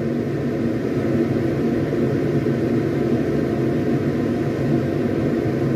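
Pot of creamy corn soup boiling hard on a gas stove: a steady low rumbling noise.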